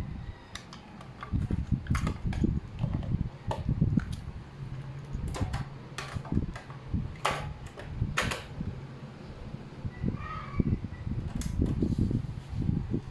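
Sharp plastic clicks and clacks as a cassette's clear case is handled and opened and the tape is pushed into a boombox's cassette deck and the deck door shut, about ten clicks spread through, over a steady low rumble.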